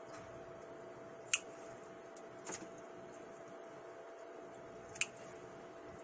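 Scissors snipping through dill stems: three short snips, about a second in, midway, and about five seconds in.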